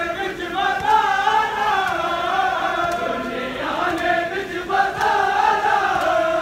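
Men's voices chanting a Shia mourning lament (noha) together, a sustained, wavering melody sung in long phrases.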